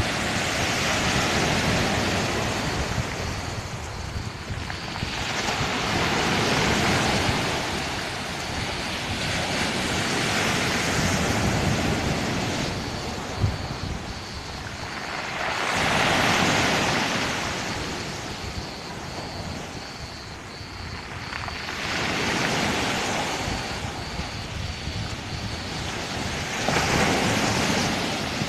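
Sea waves breaking and washing up a pebble beach, the surf swelling and fading about every five seconds.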